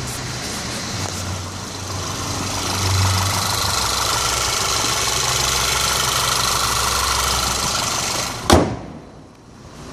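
2012 VW Eos engine running steadily after a hot no-start, kept from idling down because it dies otherwise. About eight and a half seconds in there is a single sharp click, and the engine sound then drops away.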